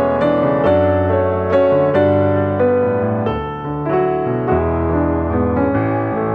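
Background music: a gentle piano piece with a bass line, notes changing every half second or so.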